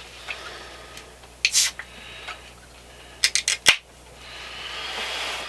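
Small hard objects being handled, with a couple of sharp clicks and then a quick run of four or five sharp clicks a little after halfway, followed by a soft hiss that swells near the end.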